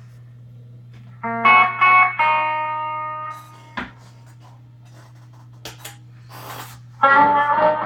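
Electric guitar played through a small amp: a few chords struck about a second in that ring out and fade, a pause with small string and pick clicks, then another chord struck near the end. A steady low hum runs underneath.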